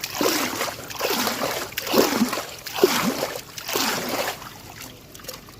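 Water splashing in about five bursts, roughly one a second, dying down in the last second.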